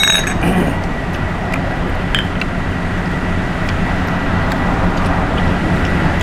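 Steady background noise of road traffic, with a few light clinks of spoons on steel plates near the start and about two seconds in.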